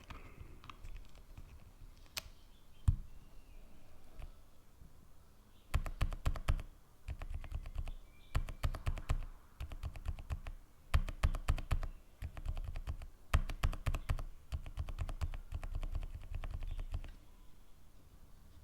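Mechanical keyboard switches from Kailh's Box linear series, typed on: a few single keystrokes, then repeated bursts of rapid typing, each lasting about a second.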